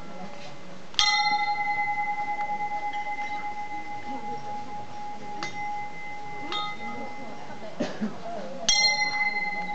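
A metal bell struck twice, each time ringing on with a clear tone that slowly fades. The first strike comes about a second in and rings for several seconds. The second comes near the end.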